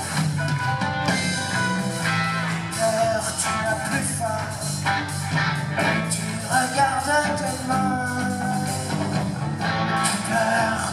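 Live rock band playing: two electric guitars, bass guitar and drum kit at full volume, recorded from the audience in an arena.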